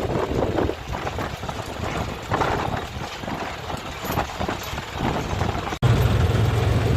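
An engine running under gusty wind buffeting on the microphone. About six seconds in the sound cuts off abruptly and a steadier, louder low engine drone takes over.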